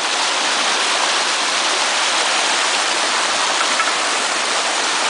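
Small stream water spilling over a foot-high rock drop: a steady rushing splash of falling water.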